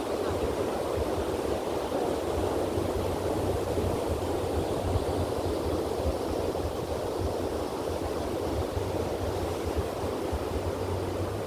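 Ocean surf washing steadily onto the beach, with a low wind rumble on the microphone.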